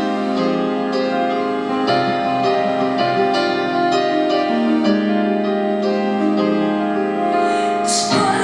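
Live piano playing slow, sustained chords that change about every second and a half.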